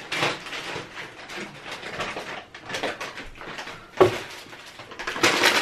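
Someone coming in and handling a canvas tote bag: irregular rustling and shuffling, with a sharp thump about four seconds in and a louder run of rustling near the end.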